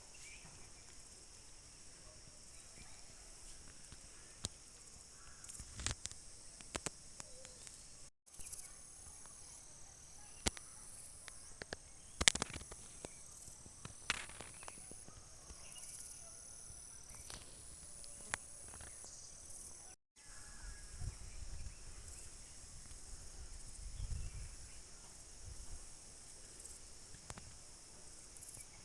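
Outdoor insect chorus, a steady high shrill hiss, with short high notes repeating over and over in the middle stretch. Scattered sharp clicks and snaps come and go, and the sound briefly drops out twice.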